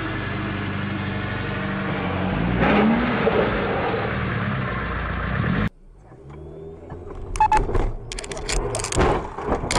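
A car engine running and revving as an old Lada saloon drives through snow, heard dull and thin through a surveillance camera's microphone, swelling a few seconds in. It cuts off suddenly, and a different street scene follows with several sharp knocks as another car passes very close.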